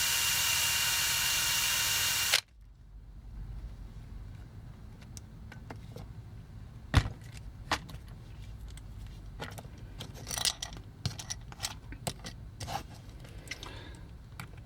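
Makita cordless drill running steadily with a small bit, drilling out a rivet in a toy, for about two and a half seconds, then stopping abruptly. After that, scattered light clicks and taps.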